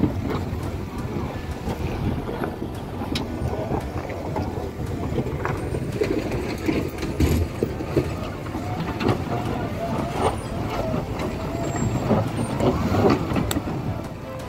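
Engines of heavily loaded Toyota Land Cruiser pickups running as they crawl past over a rough, rocky track, with scattered knocks and clicks throughout.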